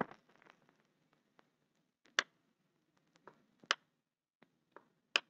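A few isolated sharp computer mouse clicks, the three loudest about a second and a half apart, over faint background hiss.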